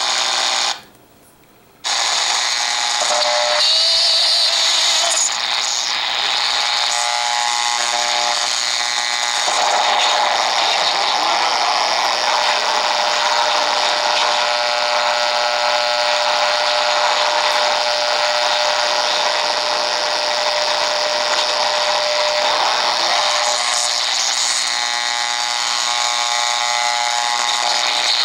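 Degen DE1106 shortwave receiver's speaker hissing with static and interference while being tuned across the 31 metre band, with a short mute about a second in as the band changes. A steady whistle sits on top of the noise through the middle stretch.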